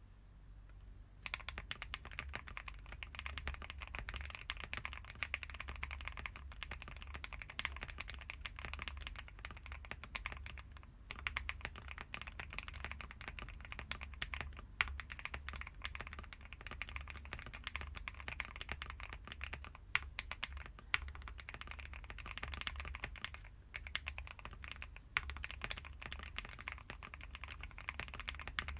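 Typing sound test on a CIDOO V65 65% mechanical keyboard with a polycarbonate plate, lubed KTT switches and lubed stabilizers, tape-modded and with the plate foam removed: a fast, uneven run of keystrokes starting about a second in, with a few louder single key presses.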